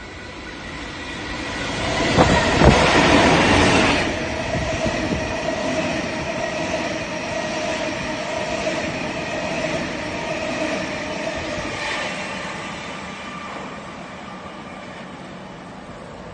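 A locomotive-hauled Waratah electric train set passes through the station at speed, loudest as the front goes by about two to four seconds in. The carriages' wheels then run on the rails with a steady ringing tone, fading after about twelve seconds as the train moves away.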